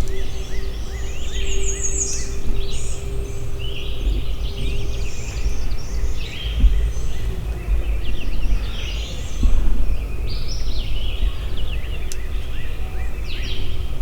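Songbirds in the dawn chorus, many short overlapping phrases, over a steady low rumble.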